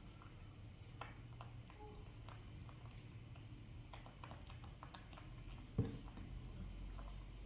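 Faint small clicks and taps of a baby monkey handling orange slices on a plate, with one sharper knock a little before six seconds in as its hand comes down on the tabletop.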